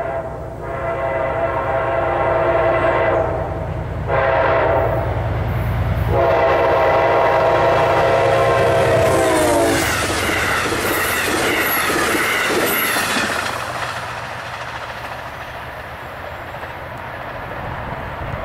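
Amtrak GE Genesis diesel locomotive sounding its air horn in a series of long blasts as the train approaches at speed, the last blast dropping in pitch as the locomotive passes. Then the rush and clatter of the passenger cars going by, fading as the train moves away.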